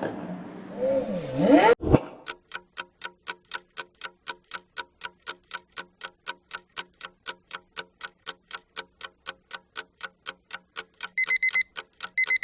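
Countdown-timer sound effect: clock-like ticking at about four ticks a second, with two short high beeps near the end as time runs out. It follows the last moments of a car engine revving in the first two seconds.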